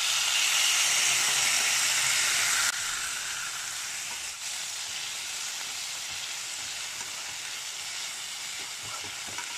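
Tomatoes, onions and green chillies sizzling in hot oil in a pressure cooker base. The steady sizzle drops suddenly in loudness about three seconds in, and a spatula stirs the mix near the end.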